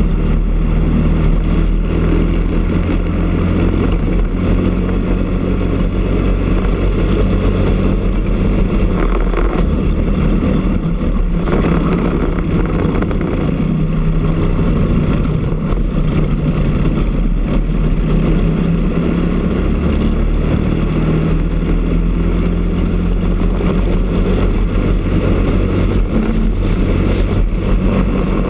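Briggs & Stratton LO206 single-cylinder four-stroke kart engine running hard at racing speed, heard from on board the kart. Its steady note changes through a slower section a little before halfway, then pulls back up as the kart speeds up again.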